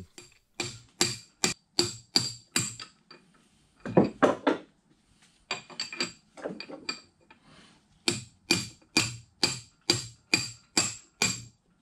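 Mini sledge hammer striking a brass punch to drive the pivot pin out of a Bridgeport milling machine's ram adapter: runs of sharp metallic blows, about three a second, each with a ringing tone, broken by short pauses.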